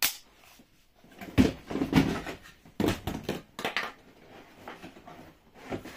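Cardboard packaging being handled: uneven knocks and rustles as items are dug out of a moulded cardboard box insert, with a sharp click at the very start.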